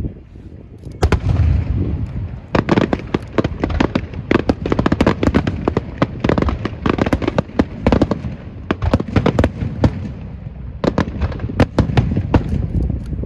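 Fireworks going off in a rapid, dense barrage of sharp bangs and crackles, starting about a second in and thinning briefly about two-thirds of the way through.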